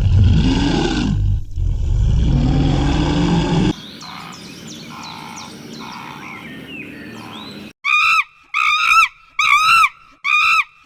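A deep, loud animal roar in two parts, then a quiet stretch with faint chirps, then about five short high-pitched calls in quick succession near the end.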